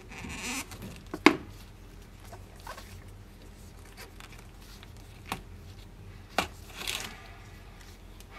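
Thread being pulled through a leather seam during hand-stitching. Short rasping pulls come near the start and again about seven seconds in, with a few sharp clicks between them; the loudest click is about a second in.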